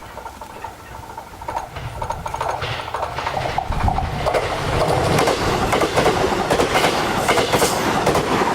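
Train approaching and passing close by, its rumble growing from about a second and a half in. Rapid clacking of wheels runs over the rumble.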